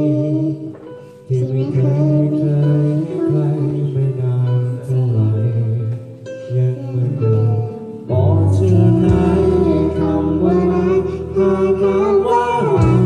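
Singing through a microphone and PA speaker over a music backing track with guitar, as in a karaoke duet.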